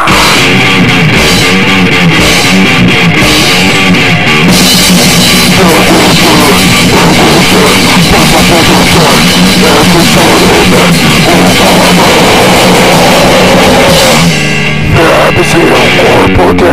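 Heavily distorted, lo-fi noisegrind played at full level: fuzzed electric guitar over a pounding drum kit. The wall of sound thins briefly about 14 seconds in, then comes back in.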